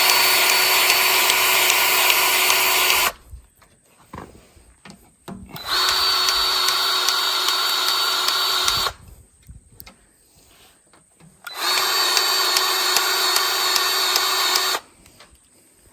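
Battery-powered grease gun running in three steady bursts of about three seconds each, with short pauses between, pumping grease into a grease fitting on a skid steer.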